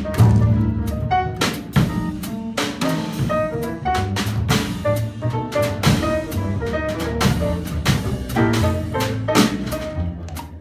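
Small jazz trio playing live: hollow-body electric guitar through a small amp, plucked double bass and drum kit with ride cymbal. The playing thins out and stops right at the end.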